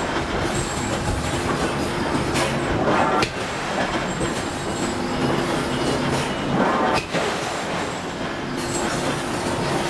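Forge shop noise: a steady machinery hum with sharp metallic strikes every few seconds, some coming in pairs, typical of a hydraulic forging hammer working hot steel.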